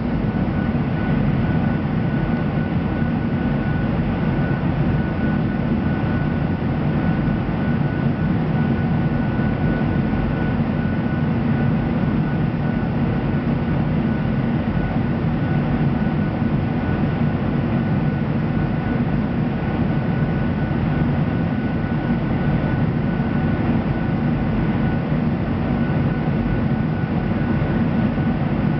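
Airplane cabin noise in flight: a steady roar, heaviest in the low range, with a thin steady high tone above it.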